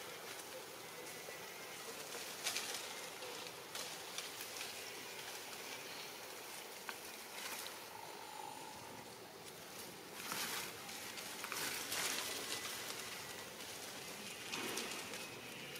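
Rustling of leaves and plant stems as a young monkey moves through undergrowth, in several short bursts over a steady outdoor hiss.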